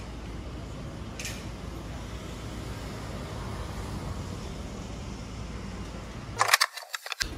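Steady low background rumble. A light click comes about a second in, and a quick run of sharp clicks near the end.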